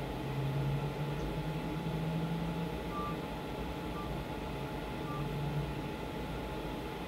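A low drone, like an engine, with three short high beeps about a second apart partway through.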